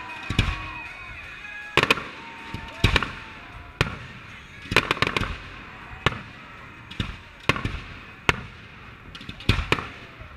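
Aerial firework shells bursting in a display: sharp bangs roughly once a second, some coming in quick clusters of several reports, over a background hiss.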